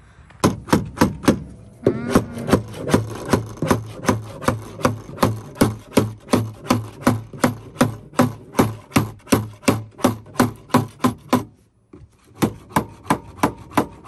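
A hand tool working wood with rapid, even strokes, about four a second, stopping for a moment near the end and then starting again.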